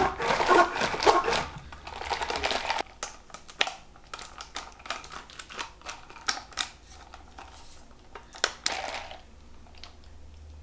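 Kitchen handling sounds: quick clicks, taps and rustling, densest over the first three seconds, then scattered sharp clicks with one louder burst near the end.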